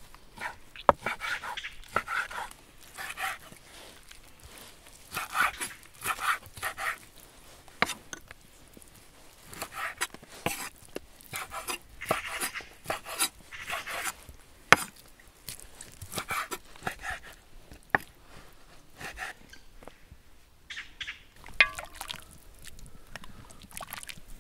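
A large knife cutting cooked lamb on a wooden board: repeated slicing and crunching through meat, fat and gristle, with sharp knocks as the blade hits the board. Near the end there is a metal clank with a brief ring as a ladle meets a metal pot.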